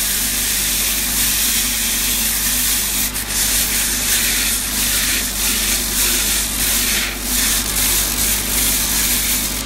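Belt grinder grinding the tapered point of a 16 mm steel round bar: a steady, high rasp of steel on the abrasive belt over the grinder motor's hum, easing briefly a few times.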